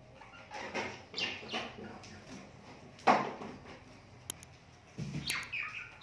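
Pet budgerigar giving a few short, harsh chirps that fall in pitch, in two clusters. About three seconds in there is a single sharp knock, the loudest sound, and there are a few light clicks later on.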